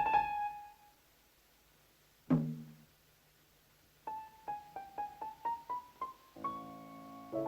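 Cartoon score played on piano: a held note dies away, a single low note sounds, then a run of short high notes, about four or five a second, climbs slowly in pitch and leads into a soft held chord near the end.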